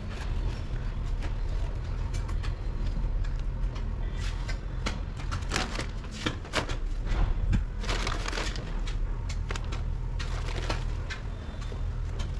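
Handling of potting soil with a hand trowel and plastic soil bag: irregular scraping, crinkling and clicking, busiest in the middle, over a steady low rumble.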